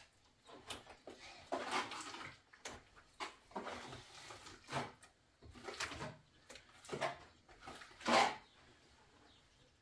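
A trowel spreading wet white plaster over a mud wall: a series of rasping, scraping strokes, the loudest near the end.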